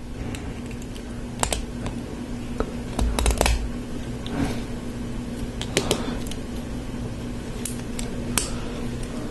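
Hard plastic LEGO Technic parts clicking and tapping as they are handled and pressed together, in scattered clicks with a quick cluster about three seconds in. A steady low hum runs underneath.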